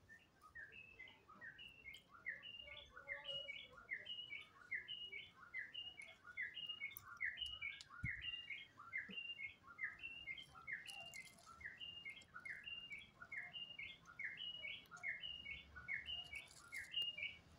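A bird calling over and over, a quick two-note chirp, a lower falling note then a higher one, repeated steadily about twice a second.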